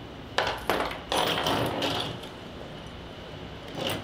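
A leather camera harness being handled, its straps rustling and its metal clips and rings clinking, in two short bursts and then a longer one, settling quiet about halfway through.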